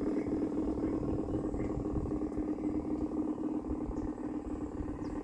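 LGB side-rod diesel garden-scale model locomotive running, a steady droning hum with an uneven low rumble beneath.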